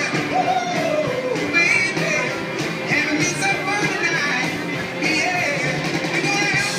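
A rock and roll song performed live: a singer sings into a microphone over a guitar-backed band accompaniment.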